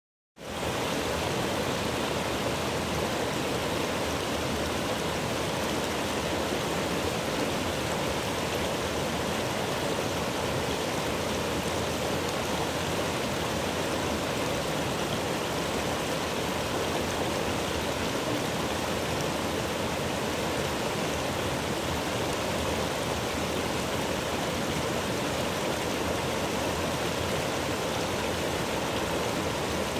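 Mountain stream rushing over boulders and small cascades: a steady, even rush of water that fades in at the very start.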